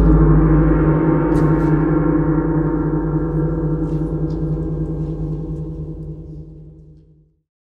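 A deep gong from the ballet score ringing out after a single stroke, its shimmering tones slowly fading, then cut off abruptly about seven seconds in.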